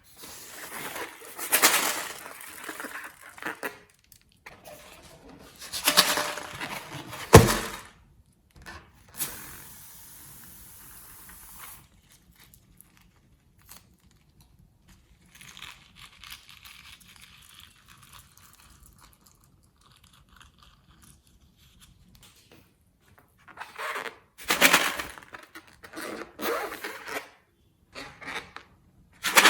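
Hands working slime and its materials: bursts of scraping, crinkling handling noise with a sharp knock about seven seconds in, and a steady hiss about nine to twelve seconds in.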